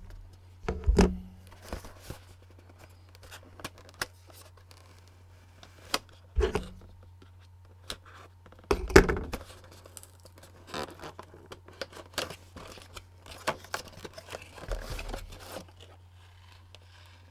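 A cardboard package being cut and torn open and its clear plastic clamshell packaging handled: scattered rustles, scrapes and clicks, with louder bursts about one, six and nine seconds in, over a steady low hum.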